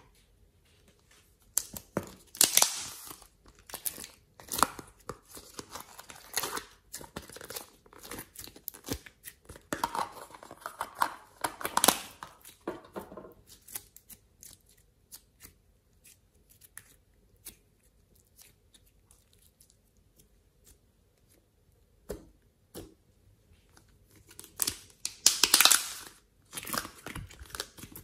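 Hands squeezing and stretching glossy slime: sticky crackling, clicking and popping in irregular bursts, falling nearly quiet for several seconds in the middle. Near the end, slime is pulled out of a plastic tub.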